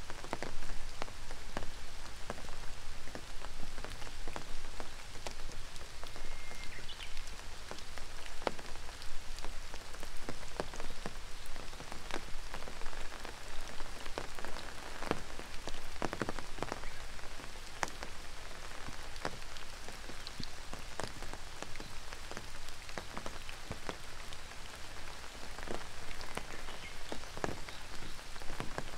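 Steady rain with many close, irregular drops and drips striking hard surfaces.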